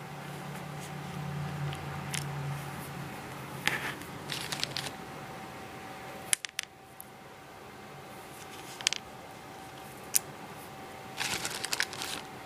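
Plastic pony beads clicking against one another as the strung beadwork is handled and moved, in several short clusters of clicks, over a faint steady high-pitched hum.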